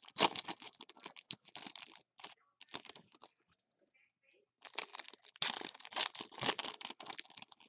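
Foil wrappers of 2016 Bowman's Best trading-card packs being torn open and crinkled in the hands: rapid crackling in two spells, with a pause of about a second near the middle.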